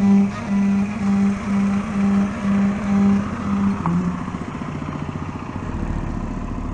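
Background music: a low bowed-string note repeated about twice a second, giving way after about four seconds to a dense low rumble.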